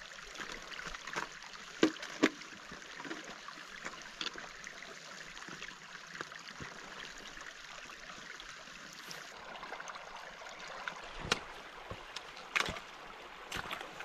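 Shallow, partly iced-over stream running over stones, a steady rushing trickle, with a few sharp knocks on top. The loudest knocks come about two seconds in and again near the end, where boots and trekking-pole tips strike the stones as a walker crosses the stream.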